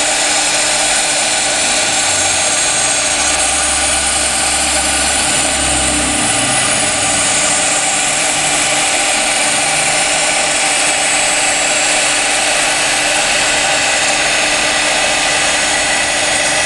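CNC router spindle running steadily as its bit engraves glass: a constant high whine and grinding hiss, with a lower hum that swells and fades a few times.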